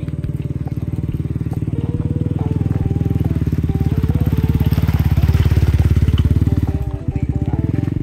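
Small motorcycle engine running as it comes up from behind and passes close by, growing louder to a peak about five to six seconds in, then falling away.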